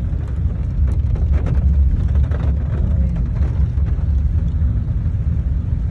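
Steady low rumble of a car driving slowly on a wet dirt road, heard from inside the cabin, with scattered faint ticks over it.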